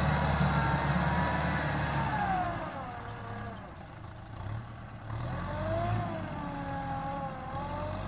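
Farm tractor engine working through a muddy field. Its note falls and fades a couple of seconds in, then picks up again about five seconds in.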